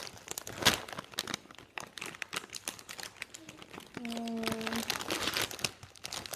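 Plastic candy bag of LifeSavers mints crinkling and crackling as it is handled, in irregular rustles. A short hummed note is heard about four seconds in.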